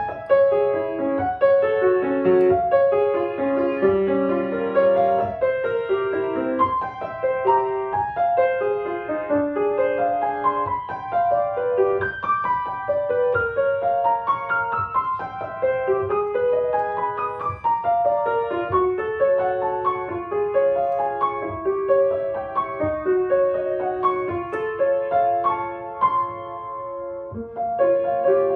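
Solo acoustic grand piano playing a continuous flowing passage of notes, with a short lull near the end before the playing picks up again.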